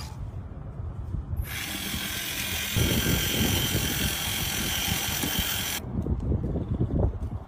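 Wind buffeting the microphone. From about a second and a half in, a loud steady whirring hiss starts abruptly and cuts off suddenly near six seconds.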